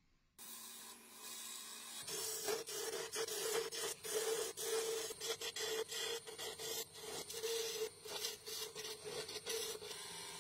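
Wood lathe turning a wooden goblet. First, for a second and a half, a hand-held abrasive rubs against the spinning wood. Then a turning tool cuts the goblet's stem: a steady hum with quick, irregular scraping strokes as the tool bites.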